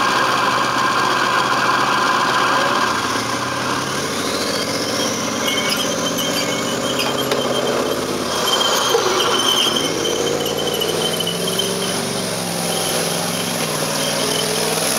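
Engine of a tracked armoured vehicle running on the move, with a thin high squeal over it and the engine pitch dipping and climbing again about two-thirds of the way through.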